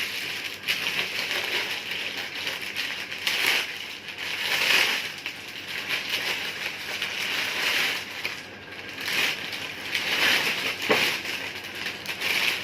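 Packaging of a set of car floor mats being handled and opened by hand: irregular crackling and rustling that swells and fades, with a sharp click near the end.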